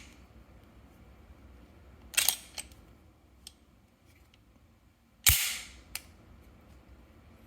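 Handling of an HK USP pistol: two loud, sharp metallic clacks about three seconds apart, the second heavier with a low thump, with a few lighter clicks between and after.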